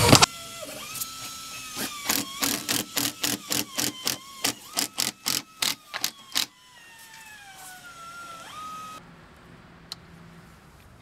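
Cordless drill driving long screws through rigid foam insulation board into wooden wall studs. The motor whine wavers in pitch, broken by a quick, even run of sharp clicks about three a second. A fainter whine follows that falls in pitch.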